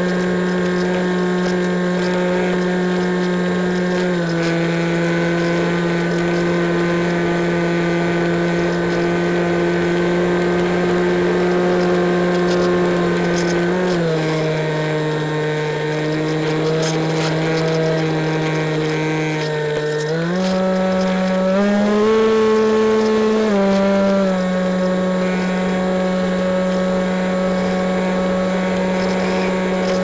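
Electric motor and pusher propeller of an EasyStar model plane droning steadily, heard from on board. The pitch steps down about 4 and 14 seconds in, climbs about 20 seconds in, briefly goes higher a couple of seconds later, then settles and drops again near the end.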